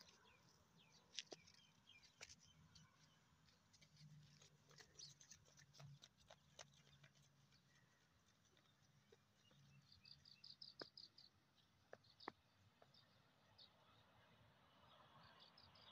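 Near silence: faint outdoor ambience with a few soft clicks and two short bursts of rapid bird chirping, one a little past the middle and one near the end.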